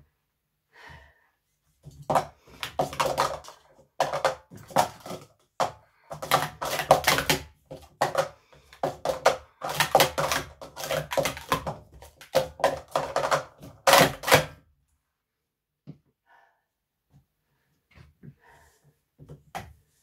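Plastic Speed Stacks sport-stacking cups clattering rapidly for about thirteen seconds as they are stacked up and down in a timed run, ending with a loud hit about fourteen seconds in, then only a few faint small sounds.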